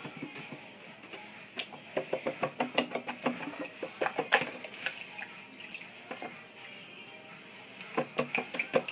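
Plastic pocket sluice being swished and knocked about in water in a plastic gold pan as it is rinsed out: splashing with sharp clicks and knocks. The sound comes in two spells, a busy one about two to five seconds in and a shorter one near the end.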